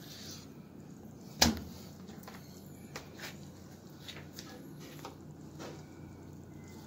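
Knife and fish being handled on a plastic cutting board: one sharp knock about a second and a half in, then a few light clicks and taps, over a low steady hum.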